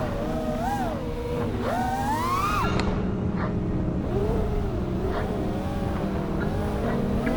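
Brushless motors and propellers of a 5-inch FPV freestyle quadcopter whining, the pitch rising and falling with the throttle; a long rising sweep about two seconds in drops away suddenly just before the three-second mark.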